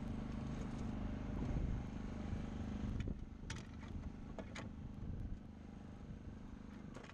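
Boat's outboard motor running steadily, slowly fading toward the end, with a few short clicks a little past halfway.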